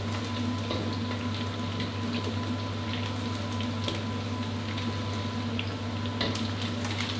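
Mid-joint chicken wings deep-frying in a wok of hot oil, nearly done and turning golden: a steady bubbling sizzle full of small crackles, over a steady low hum.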